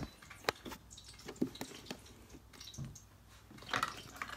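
Handling noise from a phone being picked up and set in place: scattered clicks and knocks of fingers and the phone against things, with a louder rustle near the end.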